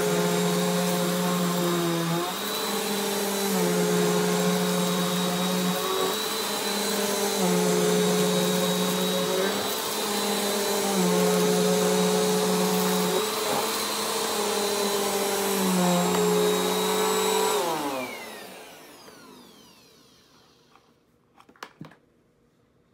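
Bissell Compact upright vacuum cleaner running over thick shag carpet, its motor pitch dipping and rising every couple of seconds as it is pushed and pulled through the pile. Near the end the motor is switched off and winds down with a falling whine, followed by a couple of faint clicks.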